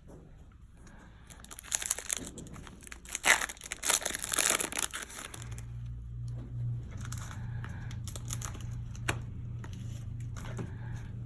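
Plastic trading-card pack wrapper being torn open and crinkled, a cluster of sharp crinkles and rips lasting a few seconds. A low steady hum comes in about halfway through.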